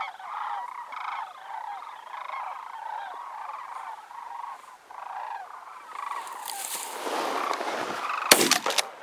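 A flock of sandhill cranes calling overhead, many calls overlapping. About eight seconds in, a shotgun fires, sharp cracks in quick succession, louder than the birds.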